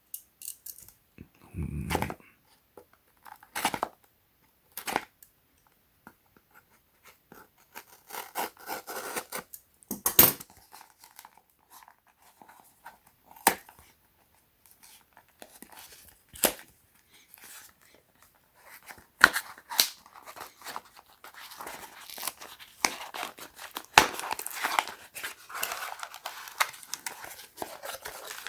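A package being unwrapped by hand: tearing and crinkling of packaging, with scattered sharp clicks and taps. The crinkling comes in stretches, busiest near the end.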